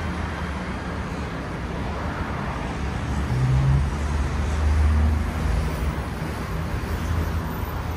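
Road traffic on a busy city street: a steady low rumble of cars driving past, swelling as vehicles pass close about halfway through.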